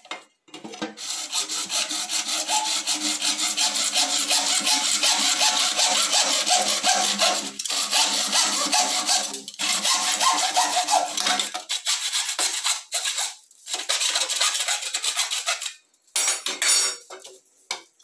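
Hand hacksaw cutting through a 3/4-inch PVC pipe in steady back-and-forth strokes, with a few brief pauses. The sawing stops near the end and a few short knocks follow.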